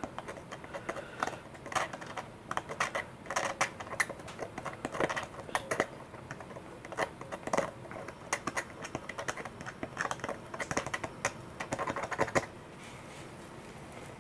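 Irregular small clicks and light scraping of a bent wire rod poking and levering under a servo frame in a carbon glider wing's servo bay, working resin in beneath it. The clicking stops about twelve seconds in.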